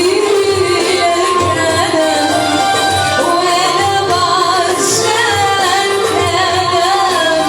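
A woman singing an Arabic love song in a wavering, ornamented line over instrumental backing with a steady drum beat about twice a second.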